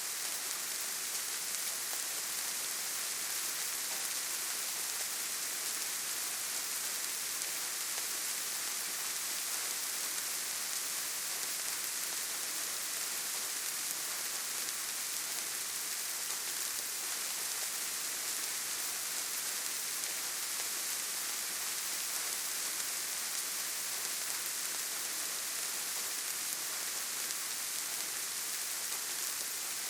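Steady, gentle rain falling: an even hiss of many small drops with no distinct drips standing out.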